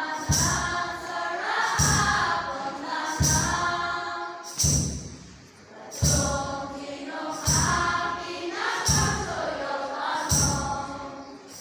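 Children's choir singing a song in unison, over a steady beat that lands about once every one and a half seconds.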